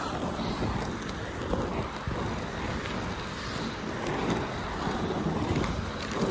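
Wind buffeting the microphone over the steady rumble of inline skate wheels rolling on asphalt.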